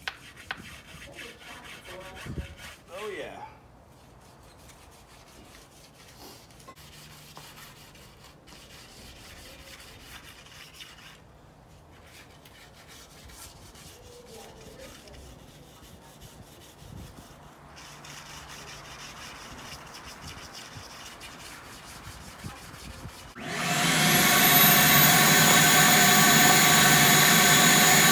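Brush scrubbing and scraping dirt out of an aluminum sliding-door track, faint and uneven. About 23 seconds in, a vacuum cleaner switches on and runs loud and steady with a whine, sucking the loosened debris out of the track.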